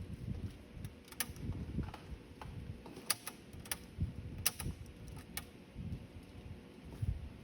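Irregular small clicks and knocks, about seven spread unevenly and two of them in quick pairs, over a low uneven handling rumble.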